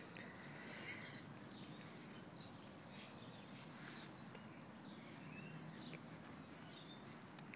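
Faint outdoor ambience with a few short, distant bird chirps in the second half.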